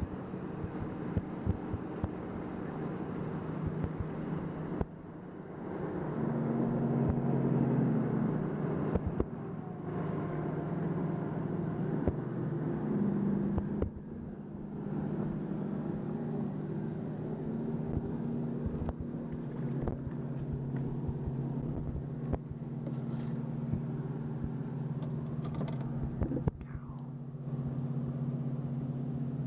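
Boat motor running with a steady low hum whose pitch steps up and down several times, with scattered light clicks and knocks.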